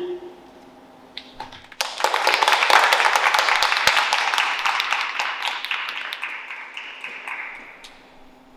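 Applause: a few scattered claps, then a round of clapping that starts about two seconds in and gradually dies away near the end.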